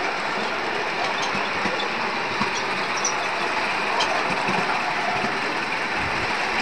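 A 7.25-inch gauge miniature steam train running along its track, heard from a passenger car: a steady rushing noise with a few faint clicks.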